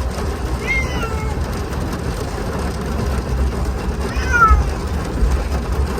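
Domestic cat meowing twice, short calls falling in pitch, the second louder, over a steady low rumble.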